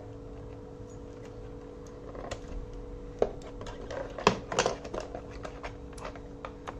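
Clicky Akko V2 Blue mechanical keyboard switches pressed one key at a time: a handful of separate sharp clicks spread out, with a faint steady hum beneath.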